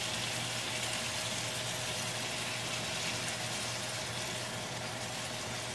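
Fish fillets and onion sizzling steadily in oil in a frying pan as frozen mixed vegetables are spooned in.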